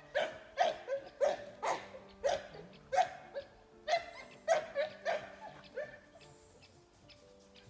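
A puppy barking in a rapid run of short, sharp barks, about two a second, stopping about six seconds in. Faint steady background music runs underneath.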